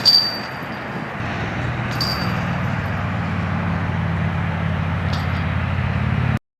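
A sharp metallic clink that rings briefly, and a second, softer one about two seconds later, over outdoor background noise. From about one and a half seconds a vehicle engine hums steadily underneath. All sound cuts off abruptly near the end.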